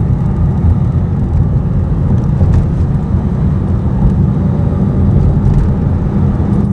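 Steady low rumble of a car driving along a town road: engine and tyre noise as heard from the moving car.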